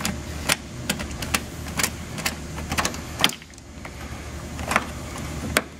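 Hand nut driver with a 9/32 bit turning a small bolt out from under a truck's front bumper cover: a string of sharp, irregular clicks and taps over a steady low hum.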